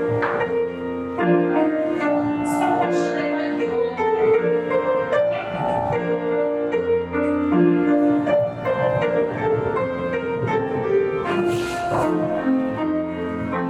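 Piano playing a melody over chords as dance-class accompaniment, with a couple of brief hissy scuffs about two and a half seconds in and near the end.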